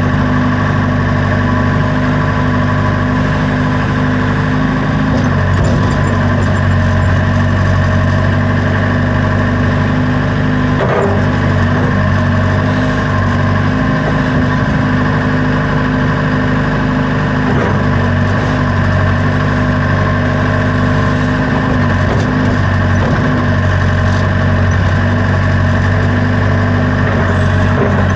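Backhoe loader's diesel engine running steadily at raised throttle, its pitch sagging briefly a few times under load. A brief knock about eleven seconds in.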